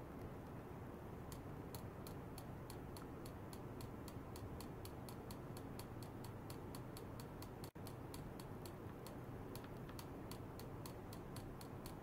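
Even, rapid clicking, about four sharp ticks a second, starting a little over a second in, over a steady low hum.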